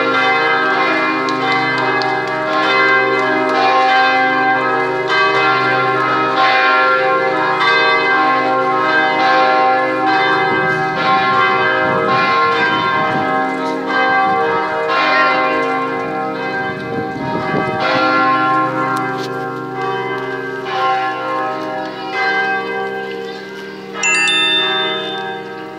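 Church bells of the Basilica of Luján ringing a peal: several bells struck again and again, their long ringing tones overlapping into a dense wash of sound. About 24 seconds in, a brief higher, sharper sound sits over the bells.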